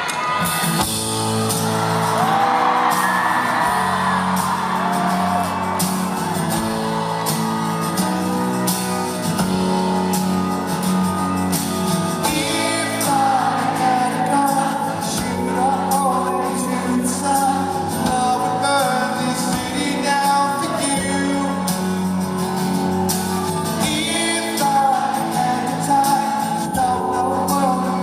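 Rock band playing live in a large concert hall, with a steady beat, held chords and a male lead vocal. The audience shouts and whoops over the music.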